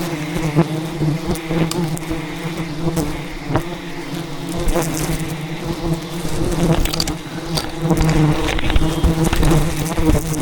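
Dense buzzing of a swarm of defensive wild honey bees close to the microphone, a steady hum that wavers in pitch, with many short sharp ticks throughout as bees strike the camera.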